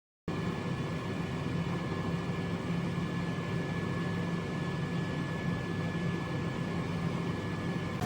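COSORI dual air fryer running: a steady fan whir with a low hum and a faint thin high whine. It starts abruptly just after the beginning and cuts off abruptly near the end.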